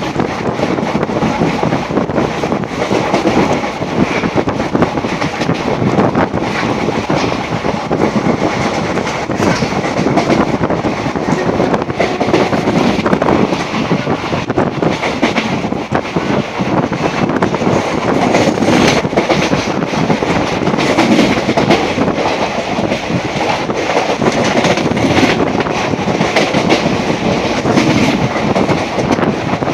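Passenger train running on the line, heard through an open coach door: a steady loud rumble with the clickety-clack of the wheels over rail joints.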